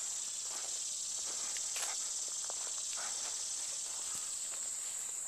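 Steady high-pitched chorus of insects such as crickets, with a few faint clicks and rustles.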